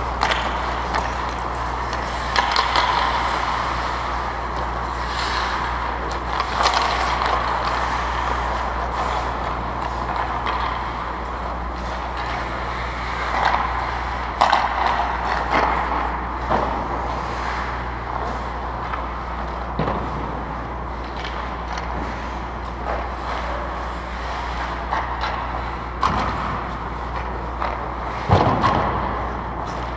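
Ice hockey play: skates scraping on the ice and sticks and puck clacking, over a steady low hum. Occasional sharp knocks stand out, the loudest about halfway through and near the end.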